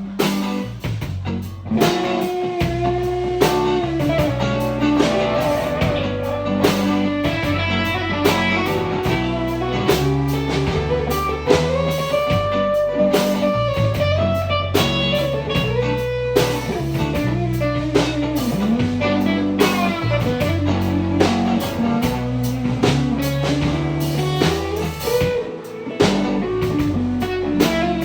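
A live blues-rock band plays an instrumental break. A guitar plays a bending lead line over low bass notes and a drum kit.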